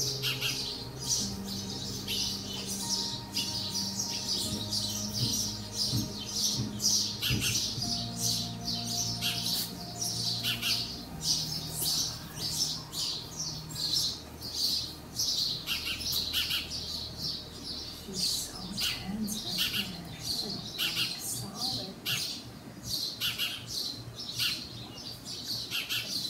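Small birds chirping rapidly and without pause, several short high chirps a second, over faint low steady tones.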